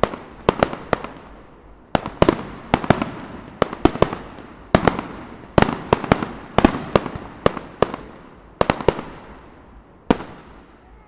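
Overhead fireworks bursting: sharp bangs, often in quick groups of two or three, each trailing off in a crackling echo. They thin out near the end, with a last single bang followed by a fading rumble.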